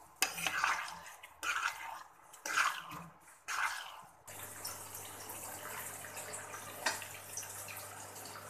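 A spoon stirring thick chicken gravy in a kadhai as it is cooked down until tender: several wet strokes, roughly one every two-thirds of a second. About four seconds in this gives way abruptly to a steady simmering hiss with a low hum.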